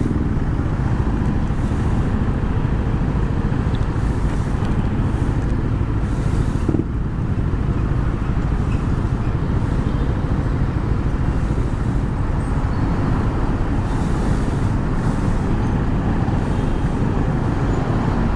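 Onboard sound of a Yamaha NMAX scooter ridden through city traffic: steady engine and road noise with surrounding cars and trucks.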